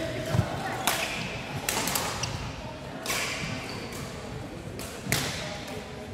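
Badminton rally: a string of sharp racket-on-shuttlecock hits about every one to two seconds, ringing briefly in a large hall.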